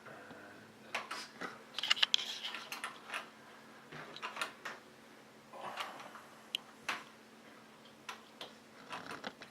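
Scattered small metallic clicks and taps as the LGA1151 CPU socket's retention lever and load plate are unlatched and swung open, with a quick cluster of clicks about two seconds in.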